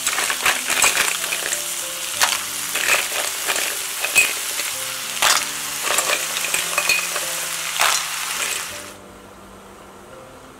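Mussels sizzling in a hot pot of onion and garlic as they are stir-fried, their shells clicking and clattering against each other and the pot. The sizzle cuts off suddenly about nine seconds in, leaving a quiet hiss.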